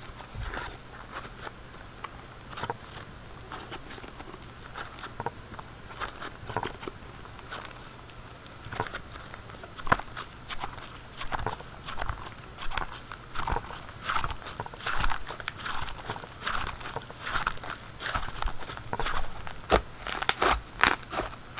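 Slime being kneaded and squeezed by hand, giving irregular small clicks and pops that get busier and louder over the last few seconds.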